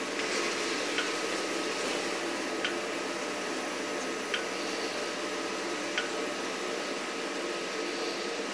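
Wire EDM machine running with its wire feeding while the axis creeps toward a second touch-off: a steady mechanical whir with a thin steady tone through it, and a short tick roughly every second and a half.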